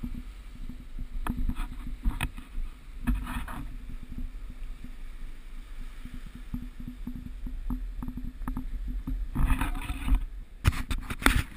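Wind rumbling over the camera microphone and water rushing past the hull of an X-Yachts 442 sailing yacht running downwind, with scattered knocks and rustles of the camera being handled, more of them near the end.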